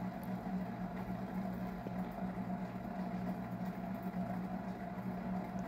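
Steady low mechanical hum with a few fixed pitches, like a fan or appliance running in the room.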